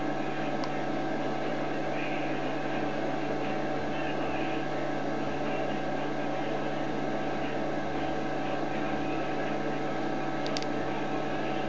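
Steady machine hum: a running machine's drone made of several held tones over a light hiss, holding level and pitch without change.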